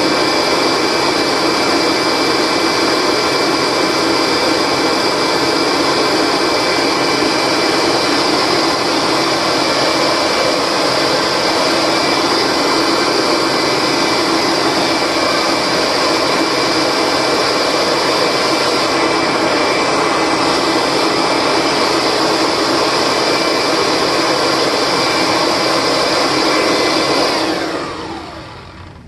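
Kirby Diamond Edition upright vacuum running on high speed with its brush roll spinning: a loud, steady motor whine over rushing exhaust air blowing out of the fill tube. Near the end it is switched off, and the motor winds down with its pitch falling away.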